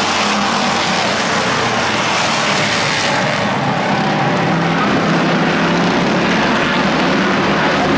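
Pack of pure stock race cars running at speed on an oval track, a loud steady engine din. The high hiss drops away about three seconds in.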